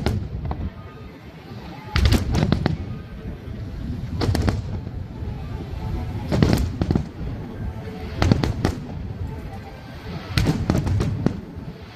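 Fireworks display: aerial shells bursting in clusters of sharp bangs about every two seconds, over a continuous low rumble.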